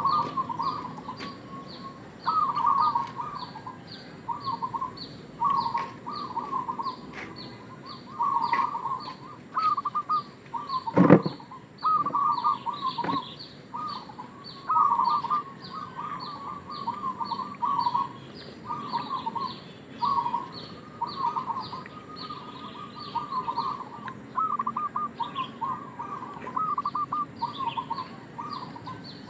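Zebra dove (perkutut) cooing in its rapid, bubbly staccato phrases, repeated about every two seconds. A fast, even high chirping runs behind it, and there is a single sharp knock about eleven seconds in.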